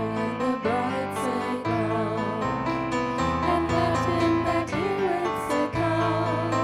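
Live worship music: keyboard chords over a low bass line changing about once a second, with voices singing a wavering melody above.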